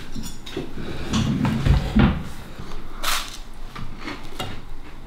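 Knife and fork knocking and scraping on a plate as someone eats, with a few dull knocks near two seconds in and a short scrape about a second later.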